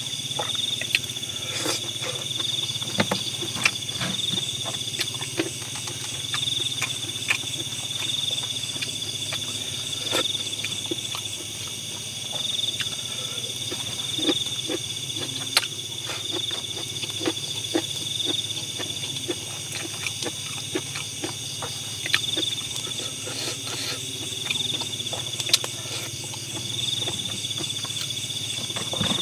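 Steady, high-pitched trilling of an insect chorus, with scattered small clicks and taps.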